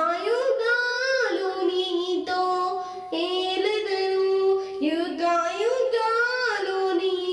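A young girl singing a Telugu song solo, with no instruments beneath, holding several long notes.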